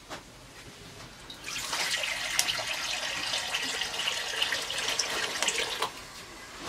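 Water pouring from a clay pot into a metal wok: a steady splashing stream that starts about a second and a half in and stops near the end.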